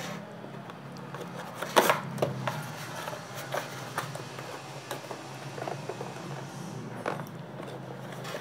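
Cardboard multimeter box being handled and pried open: scattered rustles, scrapes and taps of cardboard, the sharpest about two seconds in, as the snug box flap is worked loose. A low steady hum runs underneath.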